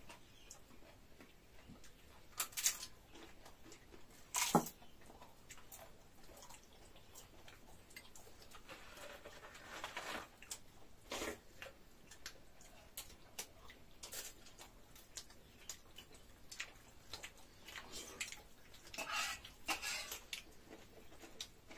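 Quiet eating sounds: scattered wet mouth clicks and smacks from chewing, with two sharper clicks in the first five seconds and a busier run near the end.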